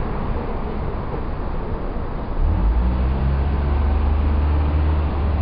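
Steady outdoor traffic noise, with a low engine hum from a nearby vehicle coming in about two seconds in and holding steady.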